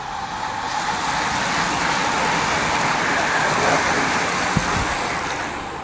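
A road vehicle passing close by: a tyre hiss on tarmac that swells about a second in, peaks past the middle and fades away toward the end.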